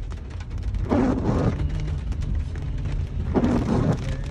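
Windshield wipers sweeping a rain-wet windshield twice, about two and a half seconds apart, over a steady low rumble of the car and light rain ticking on the glass, heard from inside the car's cabin.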